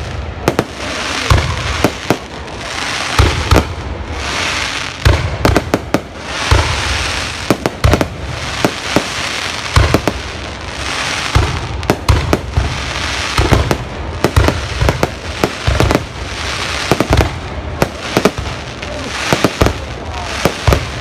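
Fireworks going off continuously: many sharp bangs, several close together, with crackling hiss between them.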